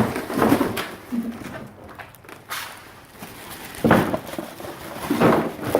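Floor mats being handled: a few irregular bumps and rustles as the mats are moved and flexed.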